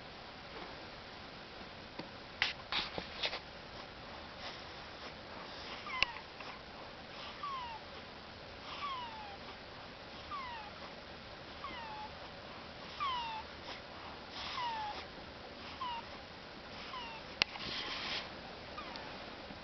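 A sleeping baby snoring with a squeaky whistle: a short high squeak falling in pitch on each breath, about once a second, starting a few seconds in. A few sharp clicks are heard early on and near the end.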